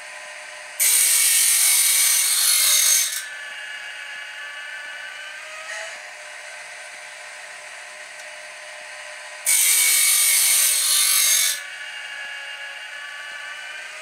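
Woodland Mills bandsaw-blade sharpener running with a steady whir. Twice, about eight seconds apart, its grinding wheel grinds a blade tooth with a loud harsh rasp lasting about two seconds, one tooth at a time as the advancer steps the blade on.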